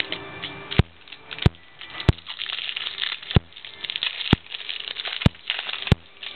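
Crinkly rustling handling noise from trading cards and their packaging, broken by about seven sharp clicks, roughly one a second.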